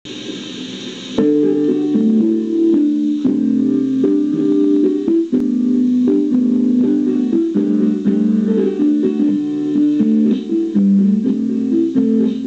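Music of plucked guitar notes over sustained chords, coming in louder about a second in after a softer, hissy opening.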